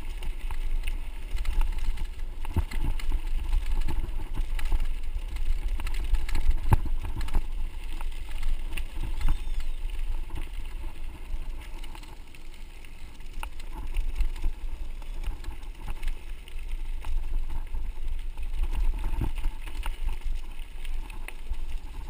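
Mountain bike rolling over a gravel dirt road, heard from a camera on its handlebars: a steady low wind rumble on the microphone and the rattle of the bike over the rough surface, with a few sharper knocks from bumps.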